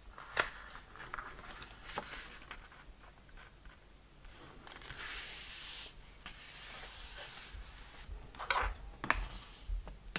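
A sheet of designer paper being folded and creased by hand: a few crisp crackles of the paper, and a longer stretch of rubbing in the middle as the hands smooth the fold flat.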